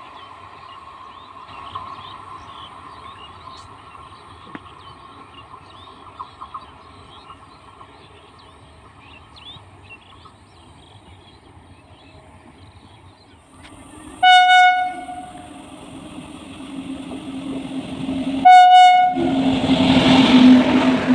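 Indian Railways locomotive horn sounding two blasts, the first about a second long and the second shorter, after a quiet stretch. A train's rumble then swells quickly as it draws near.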